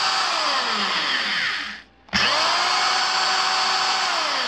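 A 1982 Milwaukee Magnum 5370-1 half-inch corded hammer drill running free in forward, in its low gear range. It winds down to a stop about two seconds in, then starts again right away and runs on steadily.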